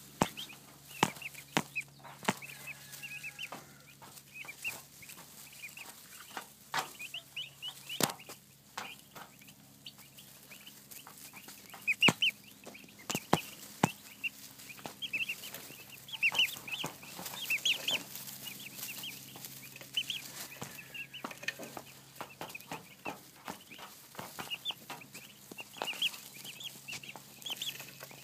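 A group of turkey poults peeping in many short, high chirps, close to the microphone. Frequent sharp taps come through as they peck at the camera.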